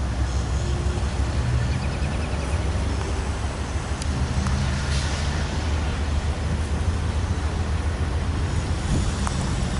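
GE C44-9W diesel locomotives in Santa Fe warbonnet paint working under power as their freight train approaches, a steady low diesel rumble.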